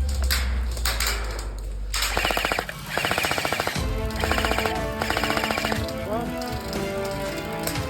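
Airsoft electric gun firing on full auto in four quick bursts, each under a second, a rapid clatter of shots.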